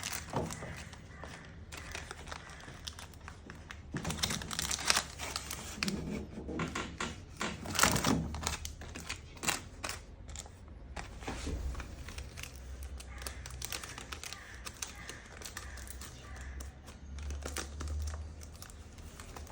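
Cellophane overwrapping machine running: a steady low motor hum under many irregular clicks and clacks from the mechanism, with crinkling of plastic film.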